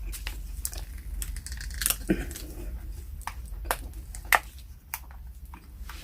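Plastic drink bottle being handled and its screw cap twisted open with effort: a run of sharp clicks and crackles.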